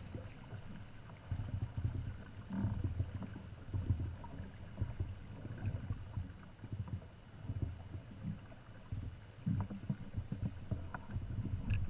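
Hobie Tandem Island sailing kayak under sail, its hulls moving through the water: an uneven low rumble of water against the hulls that swells and fades every second or so.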